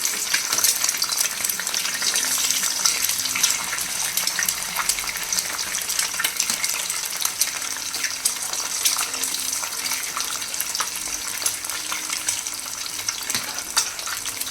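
Beaten eggs frying in hot oil in a wide pot: a steady sizzle with dense small crackles.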